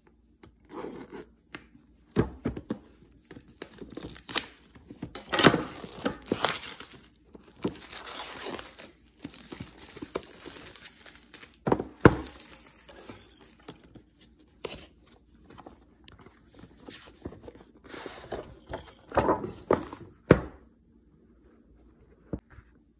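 Clear plastic shrink wrap on a thermostat box being slit with a kitchen knife, then torn off and crumpled, in irregular crinkling bursts with a few sharp clicks. The crinkling stops about two seconds before the end.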